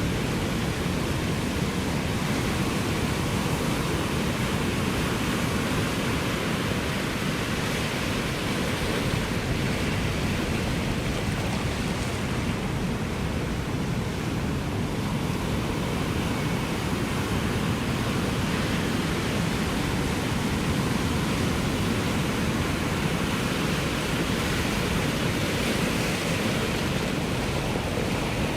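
Ocean surf: a steady, even wash of breaking waves with no distinct single wave crashes.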